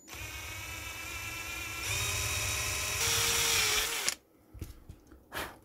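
Power drill with a fine bit running, drilling the head off a rivet in a small plastic switch: a steady whine that gets louder in two steps, about two and three seconds in, and stops a little after four seconds. A couple of faint knocks follow.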